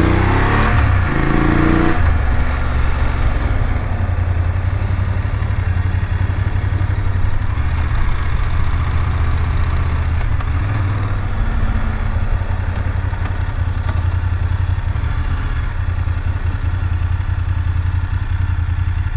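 BMW F750GS parallel-twin motorcycle engine heard from the bike itself, its note changing over the first two seconds and then running steadily at low revs during slow town riding.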